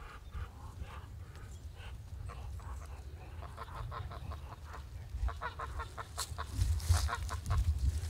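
Sebastopol geese and ducks calling in a quick run of short honks and quacks. The calls are sparse at first and get busier in the second half.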